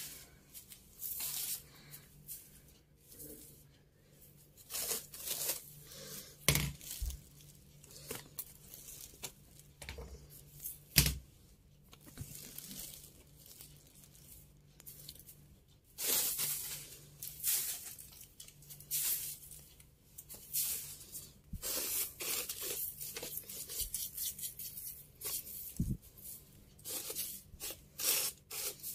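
Soft grass broom sweeping rose petals and crumpled newspaper across a tiled floor: repeated brushy swishes with paper rustling. Two sharp knocks stand out, about six and eleven seconds in.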